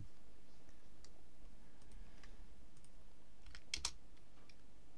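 A few faint, scattered computer keyboard clicks, with a quick pair of sharper clicks about three-quarters of the way through, over a low steady hum.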